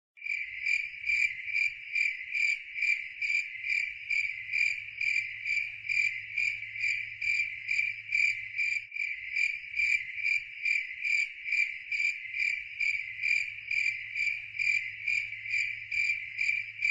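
Cricket-like chirping, high-pitched and evenly repeated about two times a second, over a faint low hum.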